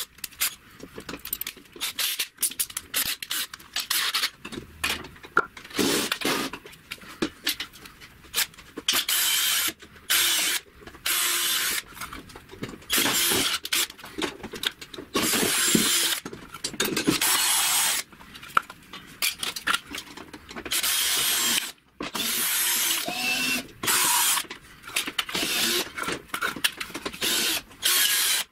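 DEKO GCD12DU3 cordless drill run in repeated bursts of a second or two, drilling into a wooden block. Short clicks and knocks of handling come between the bursts, mostly in the first few seconds, while the bit is being fitted in the chuck.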